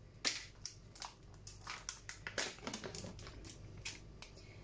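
A plastic ricotta tub being opened by hand: the lid pulled off and the seal handled, giving a run of small crinkles and clicks.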